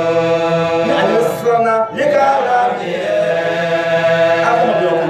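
A man chanting solo in long, drawn-out held notes, with a short break about two seconds in.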